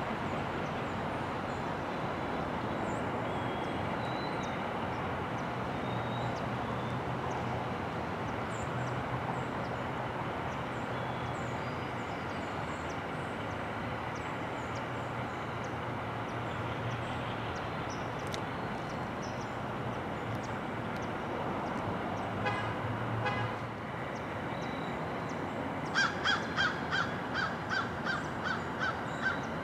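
Diesel locomotive running slowly, a steady rumble with a low engine hum. Near the end a crow caws about nine times in quick succession, louder than the locomotive, after a shorter run of similar calls a few seconds earlier.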